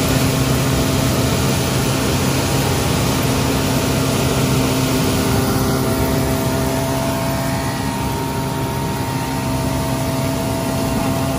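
Vactor vacuum truck running steadily at a drain box, its engine and vacuum system giving a constant drone over a rushing hiss.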